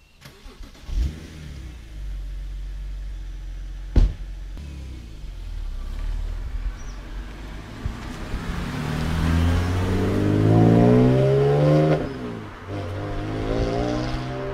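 BMW E90 330i's N52 3.0-litre straight-six, breathing through a BMW Performance exhaust with the midpipe deleted, flares up about a second in and then idles, with a single sharp door thump about four seconds in. The car then pulls away, its engine note rising in pitch as it accelerates hard past, drops briefly, and rises again near the end.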